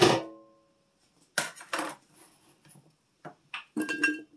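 A glass slow-cooker lid is set down with a sharp clank that rings briefly, then sliced potatoes are tipped into the ceramic crock with a couple of scraping rustles and a few small clinks near the end.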